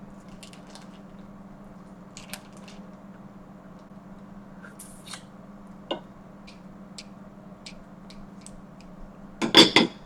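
Snow crab leg shells being cracked and picked apart by hand: scattered small clicks and crackles, then a loud burst of cracking near the end.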